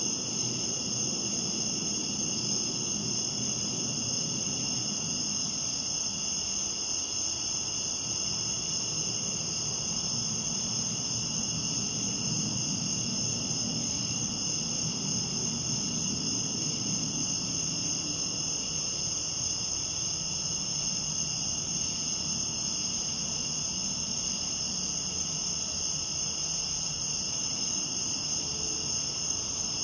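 A steady night chorus of crickets, chirping without a break over a faint, uneven low rumble.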